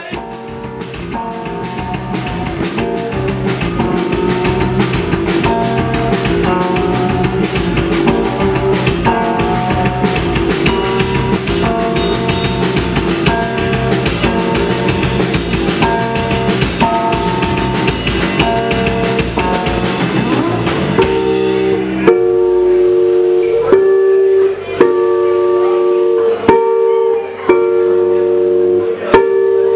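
Live band playing an instrumental passage on electric guitar and drum kit, fading in over the first few seconds. About 22 seconds in, the drums mostly drop out and the guitars play held chords with short stops between them.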